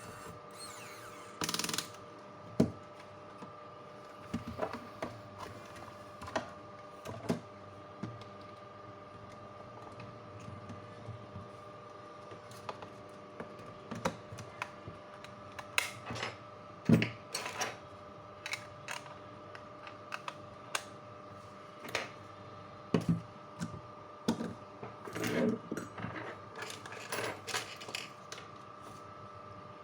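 Irregular light clicks and taps, as of small parts and tools being handled on a repair bench, over a faint steady hum; the clicks come thickest in a cluster near the end.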